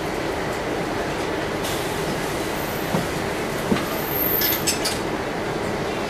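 Steady rumble of a city bus heard from inside the cabin as it crawls along, with a couple of knocks and a short burst of clicking rattles a few seconds in.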